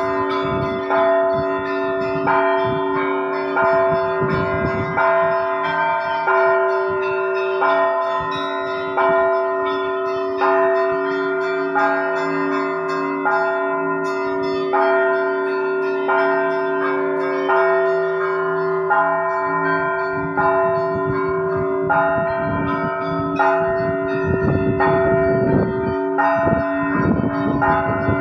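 Russian Orthodox church bells rung together, calling to a service: higher bells struck in a steady repeating pattern, about one and a half strikes a second, over the sustained hum of lower, larger bells.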